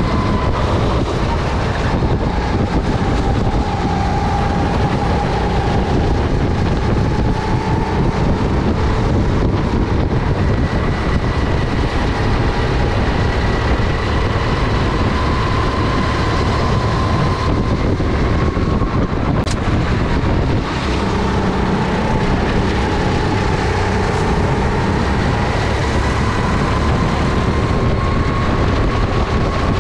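Honda GX270 single-cylinder four-stroke engine of a SODI RT10 rental kart running under load, its revs dropping twice and climbing back as the kart slows and accelerates around the track.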